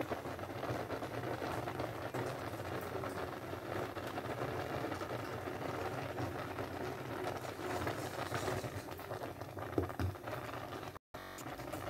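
Pot of palm-oil owo soup boiling hard with a steady bubbling crackle, and a single knock about ten seconds in. The sound cuts out completely for a moment near the end.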